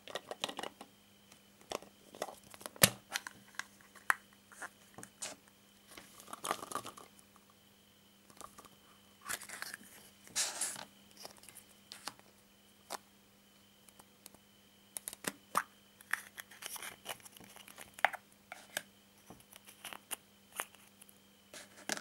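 Plastic surprise-egg capsules handled and opened: a run of sharp plastic clicks and knocks, with crinkling and tearing, as of a thin plastic wrapper, around six seconds in and again from about nine to eleven seconds in.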